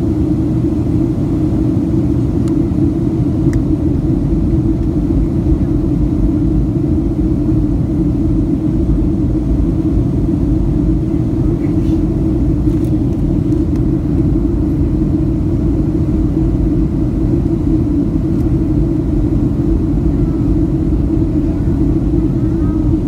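Steady low roar of a Boeing 737's jet engines and rushing air heard inside the passenger cabin as the airliner descends toward landing.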